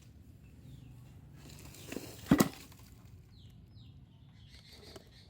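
A sharp double knock about two and a half seconds in, with a lighter knock just before it, over faint birds chirping.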